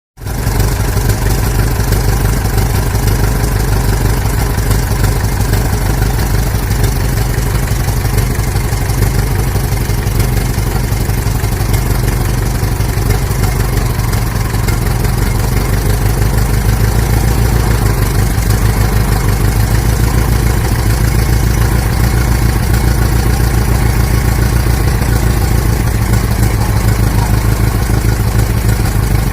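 Old car engine idling steadily with a fast, even low pulsing.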